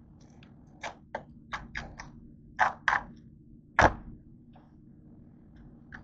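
Kitchen knife cutting through a head of cabbage on a cutting board: about eight short, sharp cuts and knocks in quick succession, the loudest just before four seconds in.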